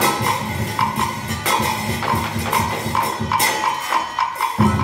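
Traditional Vietnamese water-puppet theatre music, led by percussion: quick wooden wood-block clicks and drum beats with jangly strikes over a low held tone. The low tone drops out briefly near the end.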